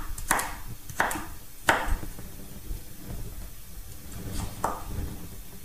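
Kitchen knife chopping vegetables on a wooden chopping board. Three sharp knocks come about two-thirds of a second apart, then a pause, then one more near the end.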